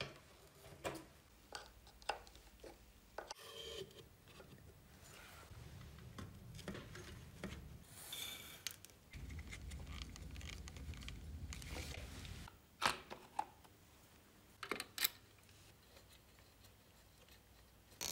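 Motorcycle parts being handled and fitted by hand: rubbing and scraping with scattered clicks and taps, a low rumble for a few seconds in the middle, and several sharp clicks in the second half.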